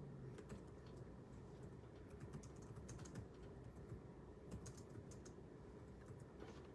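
Faint typing on a computer keyboard, irregular runs of keystrokes.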